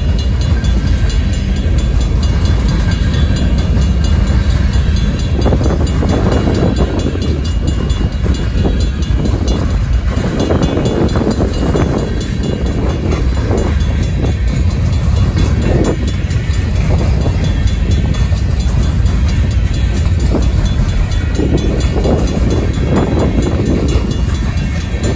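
Union Pacific freight train of covered hopper cars rolling past close by: a steady low rumble of wheels on rail, with uneven surges of rattling and clanking from the cars and trucks.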